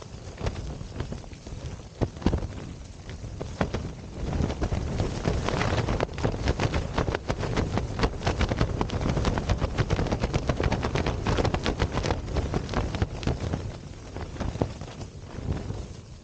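Storm wind battering a Pumori mountain tent, heard from inside: the tent fabric flaps and snaps in rapid cracks over a steady rush of wind. A stronger gust builds about four seconds in and eases off near the end.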